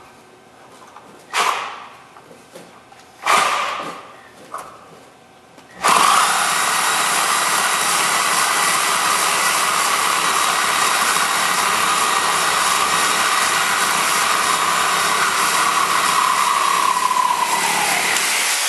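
DeWalt reciprocating saw (sawzall) with a metal-cutting blade, cutting off a steel bolt. A few short bursts come first, then about six seconds in the saw runs steadily and loudly for about twelve seconds, its pitch sinking slightly near the end as it finishes the cut, and then stops.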